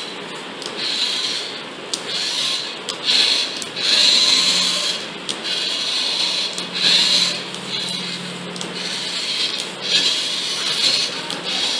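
Small geared DC motors of a homemade RC robot car whirring in repeated bursts, some a second or more long, as the car is driven and turned by remote.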